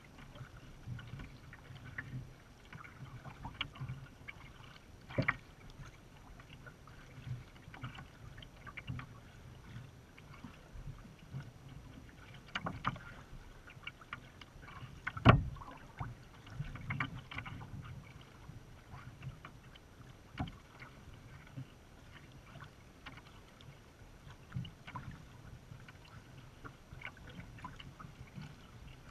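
Small waves lapping and slapping against the hull of a sea kayak as it drifts, with scattered light splashes and ticks and one sharp knock about halfway through.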